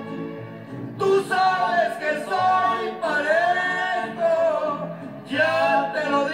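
Music: a voice singing long, held notes over instrumental backing.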